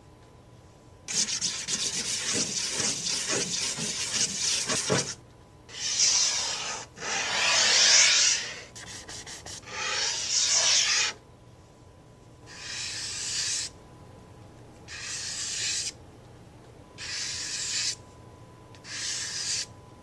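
Charcoal rubbing and scribbling on paper: a long stretch of scratchy rubbing, then a few shorter strokes, and near the end four brief bursts about two seconds apart.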